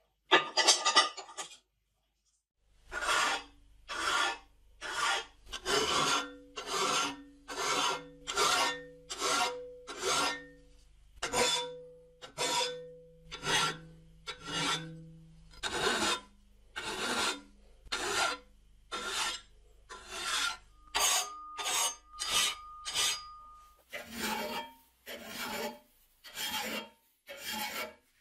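Hand file worked in long back-and-forth strokes across a rusty steel rake head, about one stroke a second and quicker near the end, the metal ringing under several of the strokes.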